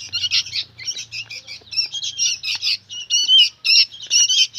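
Young sooty-headed bulbuls calling in a rapid run of short, high chattering notes.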